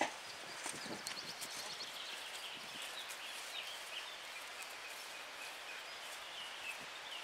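Faint outdoor ambience: a steady hiss of wind and open-field noise with distant birds chirping, after a single sharp click at the very start.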